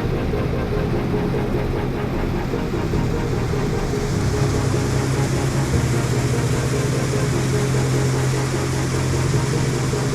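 Combine harvester's diesel engine running steadily, a constant low hum with no change in speed.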